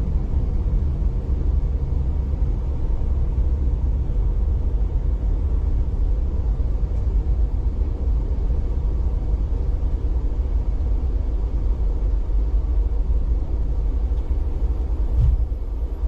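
Steady low rumble of a V/Line passenger train running along the track, heard from inside the carriage, with a single short knock about a second before the end.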